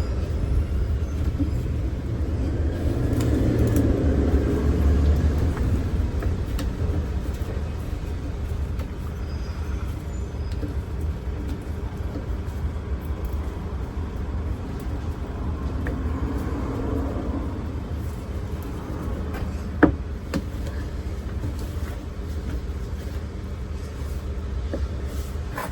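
Steady low rumble of a vehicle engine running, swelling slightly a few seconds in and again past the middle, with one sharp click about twenty seconds in.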